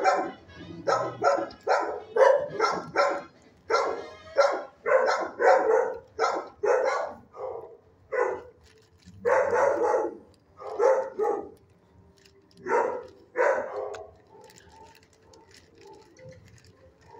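Shelter dogs in nearby kennels barking, a rapid run of barks with a few short pauses that stops about 14 seconds in.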